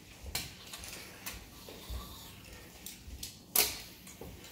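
Quiet room with a few faint short knocks and rustles; the loudest is a brief rustle about three and a half seconds in.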